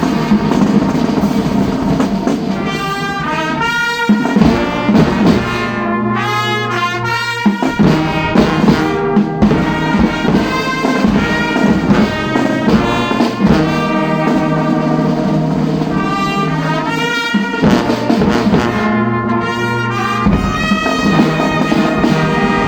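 Brass band playing, trumpets and trombones sounding held notes and short runs of notes.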